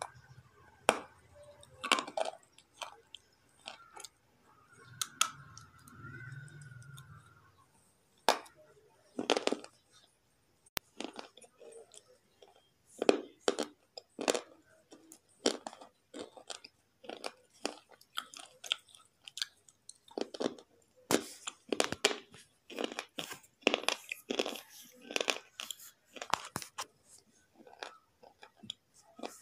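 Slate pencil being bitten and chewed close to the microphone: sharp dry crunches. They come a few at a time at first, then in a quick, dense run of chewing through the second half.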